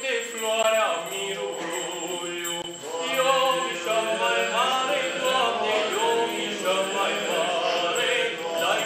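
Men singing a colindă, a Romanian Christmas carol, in a chant-like melody of long held notes.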